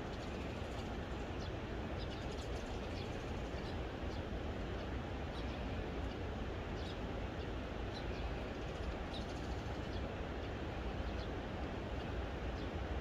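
Small birds chirping in short, high notes scattered throughout, over a steady low outdoor rumble.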